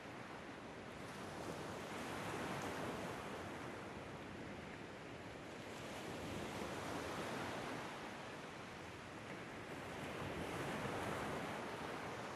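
Ocean surf washing ashore, a steady hiss of waves that swells and subsides three times, about every four seconds.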